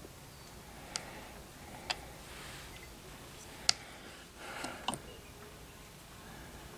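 Light sharp clicks and taps of a freshly unmolded slip-cast clay piece being handled by fingers: four separate clicks about a second apart, the loudest a little past the middle, with a brief scraping rustle just before the last one.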